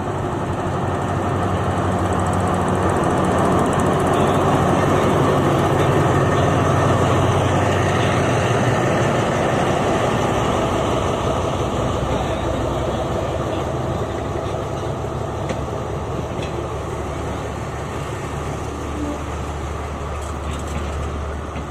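Alsthom diesel-electric locomotive No. 4112 pulling a passenger train out of the station. Its engine running is loudest as it goes past, then gives way to the rolling of the carriages, which slowly fades.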